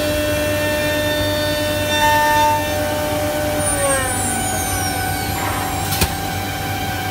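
Holztek D2400CNC door lock and hinge boring machine running: a steady whine of several tones over a rushing noise. About four seconds in a few of the tones slide down in pitch, and a single sharp click comes about six seconds in.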